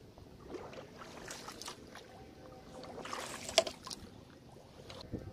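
Shallow paddy water sloshing and splashing, with scattered knocks from handling close to the microphone. A louder splashing stretch comes about three seconds in and ends in one sharp knock.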